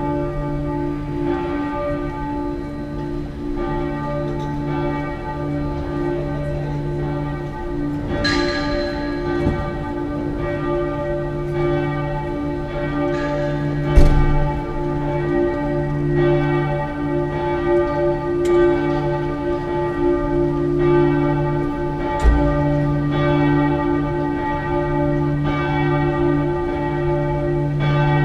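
The Frauenkirche Dresden's church bells ringing a swinging peal: deep, overlapping tones that swell and fade with each swing of the bells. A sharp knock sounds about halfway through and a dull thump comes later.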